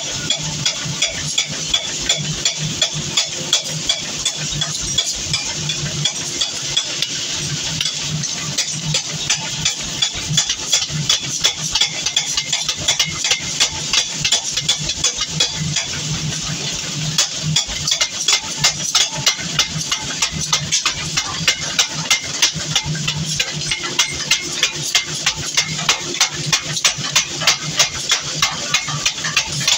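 Mechanical power hammer striking a red-hot steel cleaver blank in a rapid, even series of blows, a few each second, over the steady hum of its drive motor. The blows are forging the blank out into shape.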